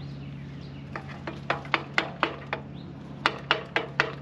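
Hammer blows through a wooden block onto the spoon gang of a Woods PL48 plug aerator, driving out a stuck, broken spoon. Two runs of quick, sharp knocks, about four a second: the first starts about a second in, the second near the end.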